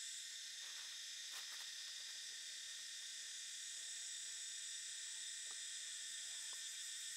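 Steady high-pitched chorus of insects, with a few faint clicks about a second and a half in.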